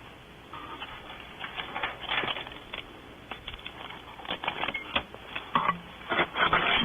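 Scraping, rustling and irregular knocks of a person moving about and climbing out of an owl nest box close to the microphone, growing busier and louder toward the end.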